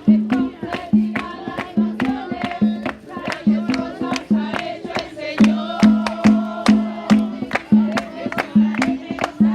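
Live festive music with voices singing over a quick, steady percussion beat and a repeating bass line.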